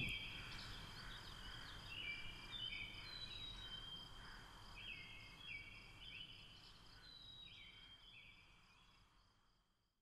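Faint woodland ambience: short bird chirps stepping between a few pitches over a steady high insect drone. It fades out about eight seconds in.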